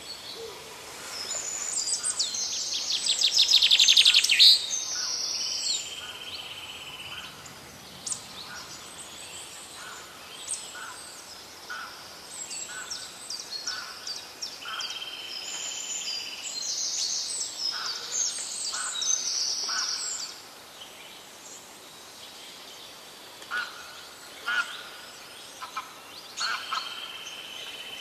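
Several wild birds chirping and calling, with a loud rapid trill about three to four seconds in and a few held high notes of about two seconds each.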